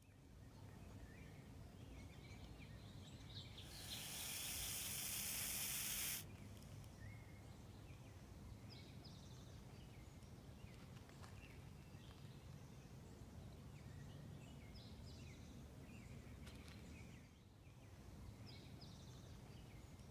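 Western hognose snake giving one long, breathy defensive hiss of about two and a half seconds, starting about four seconds in and cutting off sharply. Faint outdoor background with scattered bird chirps around it.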